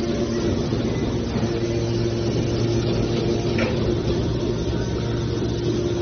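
Aluminum can baler's machinery running with a steady hum, with one short clank about three and a half seconds in.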